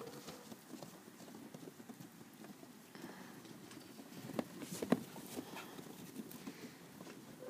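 Footsteps crunching through fresh snow: a run of soft, irregular crunches, with a few sharper ones about four and a half to five seconds in.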